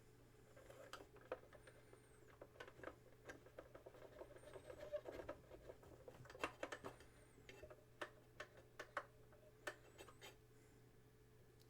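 Faint, irregular scratching and small clicks as the tape head of a Commodore Datassette cassette deck is rubbed clean by hand.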